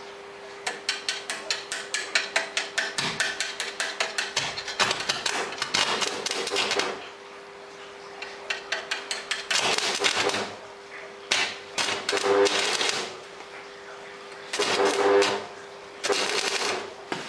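Rapid hammer blows on iron, about four or five a second for several seconds, followed by several separate bursts of harsh noise lasting about a second each, over a steady electrical hum.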